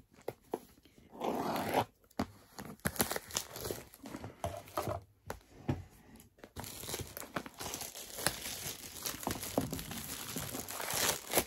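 A small cardboard subscription box being torn open by hand: irregular ripping and scraping, then plastic wrapping crinkling, which grows denser near the end.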